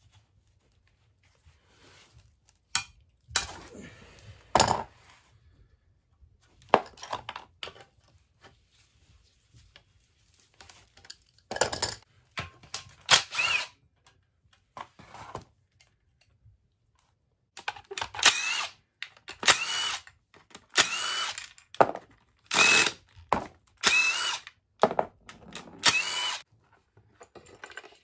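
Power driver run in short bursts, spinning out the crankcase side-cover bolts of a Yamaha Moto-4 350 engine. It gives a few bursts early on, then a run of about six a second or so apart in the second half, each with a rising whine. There are clinks of tools and loose metal parts in between.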